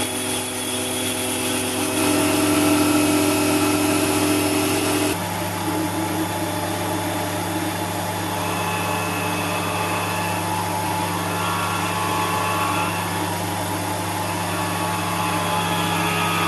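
Tool post grinder driven by a 775 DC hobby motor, running steadily with a machine hum of several held tones while it grinds the end of a bolt turning in the lathe. About five seconds in, the sound changes abruptly: a finer-grit grinding cylinder has taken over from the thin cutting disc to finish the job.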